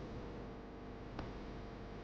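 A single sharp click about a second in, over a faint steady hum: the lock of a document box being worked open.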